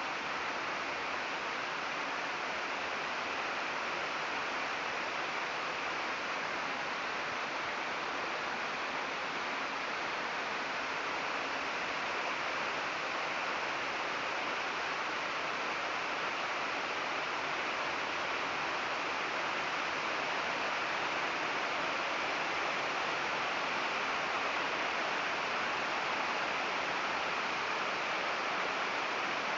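Heavy rain falling steadily on trees and foliage: an even, unbroken hiss that grows slightly louder in the second half.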